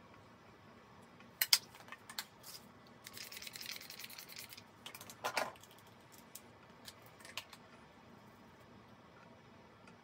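Makeup containers and tools being handled: a few sharp clicks and taps, a scratchy rustle lasting about a second and a half from three seconds in, and a louder clack about five seconds in.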